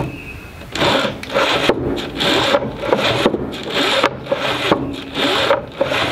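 Plywood sliding door on a chicken coop pushed up and down in its wooden track again and again: a run of scraping wood-on-wood strokes, roughly two a second. The door slides freely and works properly after being hard to get sliding.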